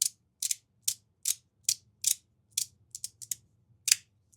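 Klondike magnetic fidget slider being slid back and forth, its plates snapping into place with a run of sharp clicks, about two to three a second, some in quick pairs.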